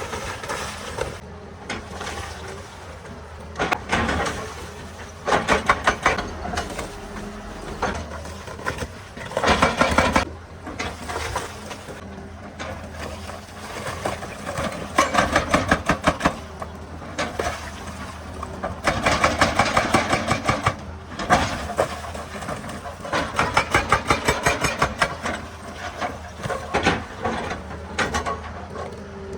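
Hydraulic breaker hammer on a Hitachi EX200 excavator pounding rock in repeated bursts of rapid blows, each burst lasting a second or two, with the excavator's diesel engine running steadily between them.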